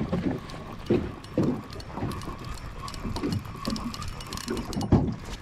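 Choppy lake water slapping irregularly against the side of a small wooden boat, over a faint steady whine.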